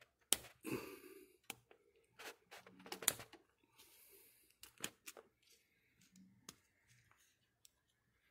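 Scattered small clicks, taps and scrapes of a Subaru STI side-feed fuel injector being handled and worked in gloved hands, with a couple of brief rustles.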